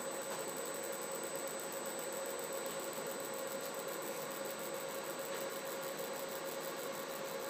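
Laser marking machine with a stepper-driven rotary axis running: a steady hum and hiss with a held mid-pitched tone.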